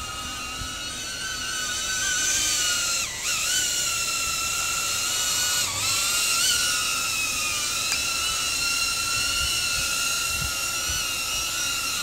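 DJI Avata FPV drone's motors and propellers whining steadily at a high pitch. The pitch dips sharply twice as the throttle is cut back, and the whine stops as the drone sets down on the road.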